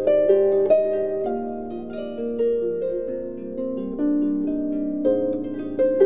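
Instrumental background music: a melody of plucked notes over held lower notes, thinning out in the middle and picking up again near the end.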